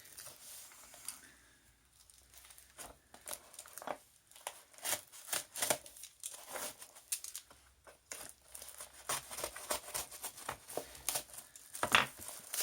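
A sharp knife cutting and tearing open a cardboard parcel, with the packaging rustling and crinkling in short, irregular scrapes; the loudest rip comes near the end.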